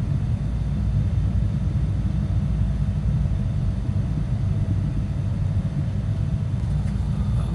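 Steady low rumble of a moving passenger train, heard from inside the carriage, with a faint steady hum over it.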